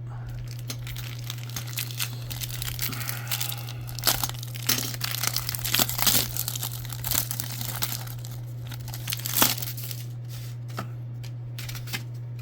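Plastic trading-card pack wrapper being torn open and crinkled, an irregular crackling with the loudest crackle about nine seconds in.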